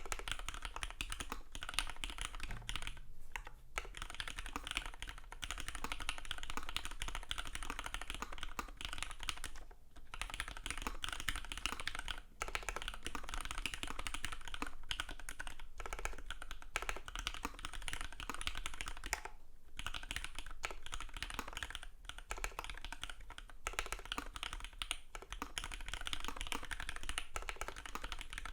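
Fast, continuous typing on a Matrix 2.0 Add Xmas custom mechanical keyboard with lubed Cherry Hyperglide Black linear switches on an aluminium plate and no added sound damping, with a few short pauses between bursts.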